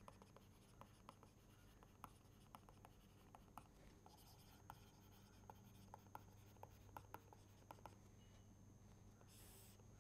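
Faint handwriting with a stylus on a tablet: a string of light ticks and short scratches as letters are formed, with a longer scratch near the end. A low, steady electrical hum runs underneath.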